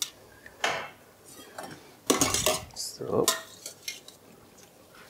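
Stainless steel bowls handled on a stone countertop: a few short metallic knocks and clinks, the loudest cluster about two seconds in.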